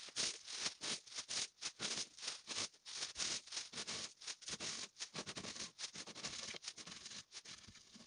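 Dried pumpkin seeds being scraped by hand off a wire-mesh drying tray and dropped into a plastic bag: a quick, irregular run of light clicks and rattles, with the bag rustling.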